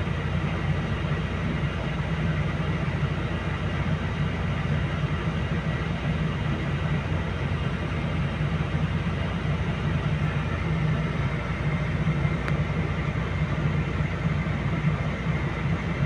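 Diesel engine of a Volvo crawler excavator running steadily as the machine inches up the ramps onto a lowbed trailer, a deep even hum with a faint steady whine above it.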